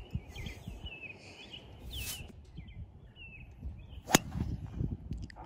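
Golf driver striking a ball off the tee: one sharp crack about four seconds in. Small birds chirp throughout with short falling calls.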